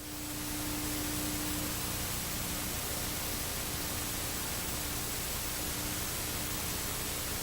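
Steady static-like hiss, even across all pitches, with a faint low hum under it; it fades in over the first second.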